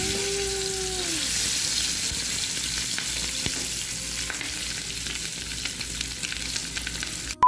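A raw chicken drumstick, coated in an egg-and-spice marinade, sizzling steadily in very hot frying oil in a pan, just after being lowered in.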